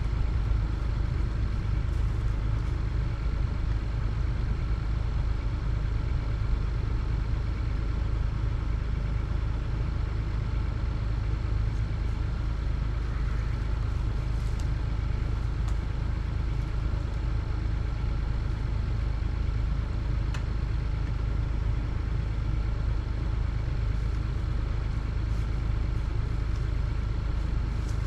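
Excavator's diesel engine idling steadily, a low even rumble with a few faint clicks scattered through it.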